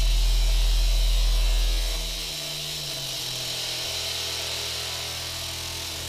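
Beatless breakdown in a live electronic dance set: a loud sustained sub-bass tone under a steady synth drone with many overtones and a high hiss. The bass drops away about two seconds in, leaving the synth drone alone.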